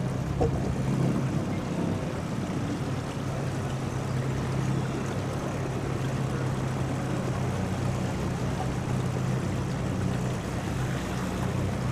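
Small outboard motor running at a steady low speed, a constant low hum over the wash of water.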